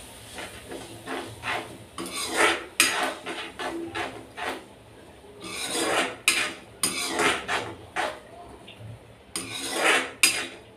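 A spatula scraping and stirring thick masala paste around an aluminium kadhai as the onion-and-spice masala fries in oil, in a few runs of rasping strokes with short pauses between.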